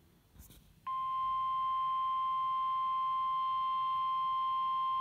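NOAA Weather Radio 1050 Hz warning alarm tone through a handheld radio's speaker: one steady, unwavering beep that starts about a second in and holds, announcing that an emergency warning broadcast (here a flood warning) is about to follow.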